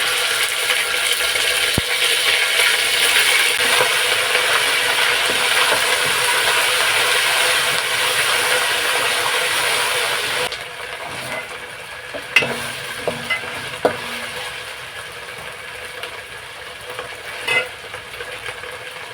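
Ghee and groundnut oil sizzling loudly in a pan with spices frying in it, the mixed fats foaming up. After about ten seconds the sizzle drops to a quieter level, with a few sharp clicks of a spoon against the pan.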